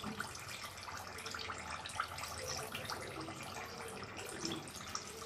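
Samosas deep-frying in oil on a low flame: a soft, steady sizzle with many small crackles.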